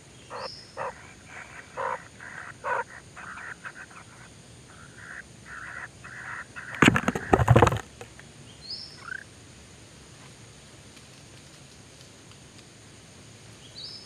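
Kingfisher nestlings in the nest burrow giving a run of short, raspy begging calls for about six seconds. Then comes a loud scuffle of knocks and scrapes about seven seconds in, and a few short, high, thin chirps.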